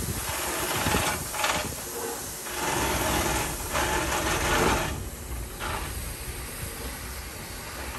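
Southern Railway S15 class 4-6-0 No. 825 pulling away under load: slow exhaust beats from the chimney over hissing steam from its open cylinder drain cocks. The sound eases after about five seconds as the engine draws past.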